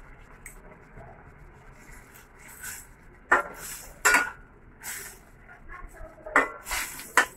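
A metal spoon stirring a boiling cream sauce in a stainless steel pan: scraping strokes, with four sharp ringing clanks of the spoon against the pan.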